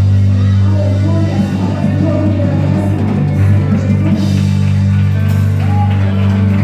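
Live worship band playing: sustained bass and keyboard chords with electric guitar, and voices singing over them.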